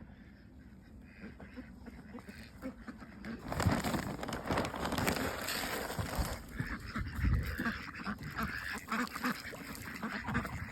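A group of ducks quacking. About three seconds in, a loud rushing noise lasts a few seconds.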